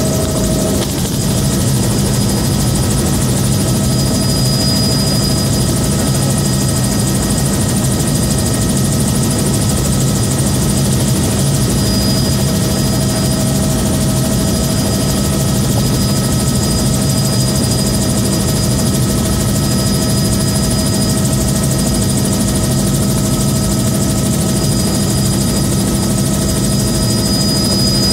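Bell 206B3 JetRanger in flight, heard from inside its doors-off cabin: a steady turbine whine with a constant high tone, the main rotor's low steady sound, and wind rushing through the open doorways, on approach to land.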